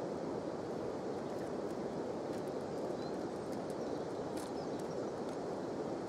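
River water flowing steadily over a shallow pebble bed, a constant rushing hiss with a few faint high ticks in the middle.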